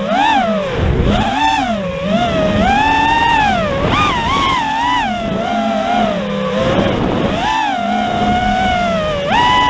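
Electric motors of an FPV racing drone whining, the pitch swinging up and down over and over as the throttle changes, with a sharp rise just before the end.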